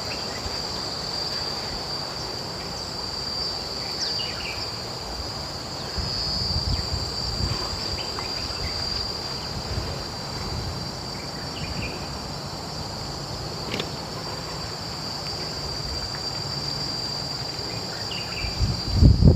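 Insects droning steadily in one high, even note, with a low rumble underneath and a few faint short chirps. Near the end a loud rush of wind on the microphone comes in.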